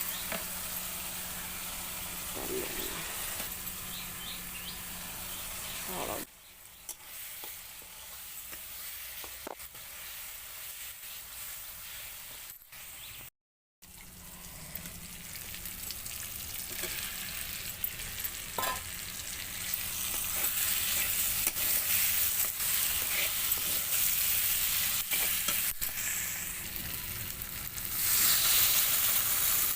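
Onions and ground spices sizzling in hot oil in a kadai, stirred with a spoon that clicks against the pan now and then. The sizzle drops away briefly near the middle and is louder in the second half, strongest near the end.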